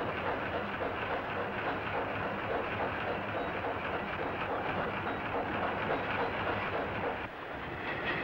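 Train running across a railway bridge: a steady rumble and clatter that dips briefly near the end.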